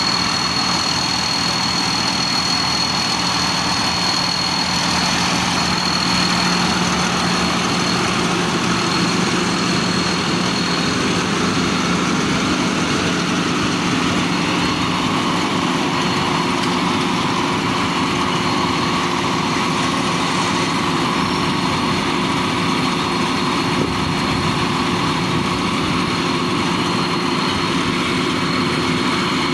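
Combine harvester engine running steadily, with a constant high whine above the engine note.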